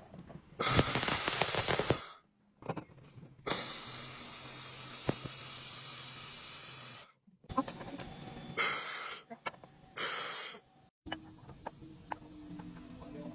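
Electric welding arc hissing and crackling in separate bursts: one of about a second and a half, a steady run of about three and a half seconds, then two short bursts, with the arc cutting off sharply between them.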